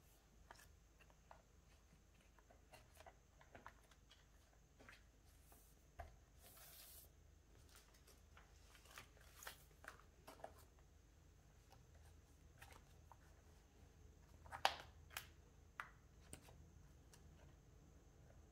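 Faint, scattered clicks and rustles of photocards and plastic binder sleeves being handled, with a brief swish about six seconds in and a sharper click about fifteen seconds in.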